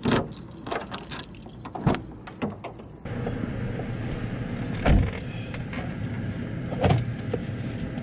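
A key jangling and clicking in a car door lock as the door is unlocked, then a steady background hum with two thumps, about five seconds in and again two seconds later.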